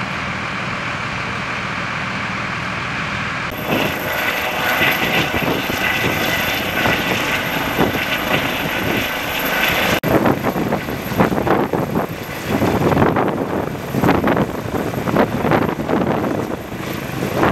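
Helicopter flying low overhead: steady rotor and turbine noise with a rapid, uneven flutter of blade beat and rotor-wash buffeting, louder from about ten seconds in. It starts after a few seconds of steady vehicle engine noise.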